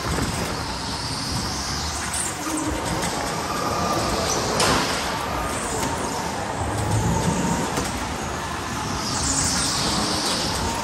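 Electric go-kart driven hard on a smooth indoor track: a motor whine that rises and falls with the throttle over tyre and wind noise. A single sharp knock about halfway through, and high tyre squeal through a corner near the end.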